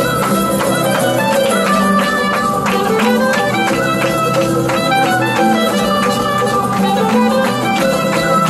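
Clarinet playing a folk melody over a strummed charango, a steady stream of notes.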